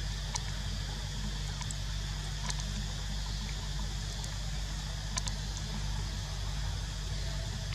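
Steady background hiss with a low hum, broken by a few faint short clicks.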